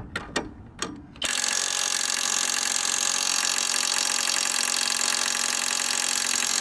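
A few short clicks, then about a second in a cordless impact wrench starts hammering steadily on its third power setting, driving a 19 mm socket on a rusted lower control arm bolt. The bolt does not break loose at this setting.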